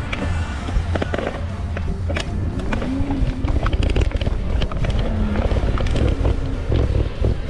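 Background music over road traffic noise and a steady low rumble, with scattered clicks.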